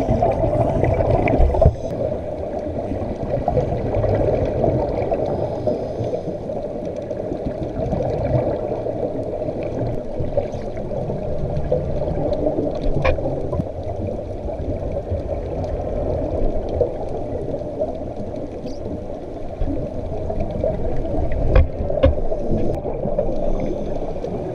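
Muffled underwater sound picked up through a camera housing during a scuba dive: a steady watery rumble with the gurgling of divers' exhaled regulator bubbles, swelling every few seconds. A few sharp clicks stand out, one about halfway through and two close together near the end.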